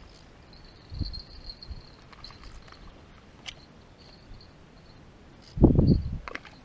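Insects chirring in a thin, high, on-and-off band over a quiet riverbank. A soft low bump comes about a second in, and a short, louder low rumble comes near the end.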